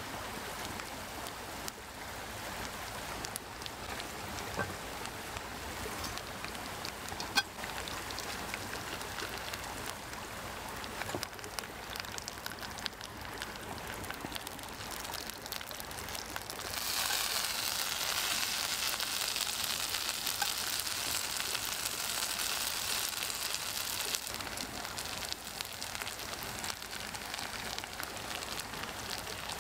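Steak and hash browns sizzling in rendered beef fat in a pan over a wood stove, a steady hiss with scattered small pops and crackles. About two-thirds of the way through the sizzle turns louder and brighter for several seconds, then settles back.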